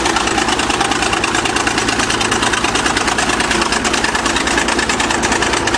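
1953 International TD-20 crawler bulldozer's diesel engine running steadily, with a fast, even firing beat.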